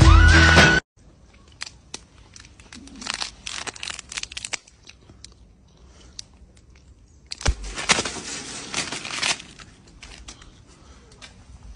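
A short burst of music cuts off about a second in. Then a plastic packet crinkles and crunches in irregular bursts as a macaque bites and tugs at it. The loudest stretch comes about eight seconds in.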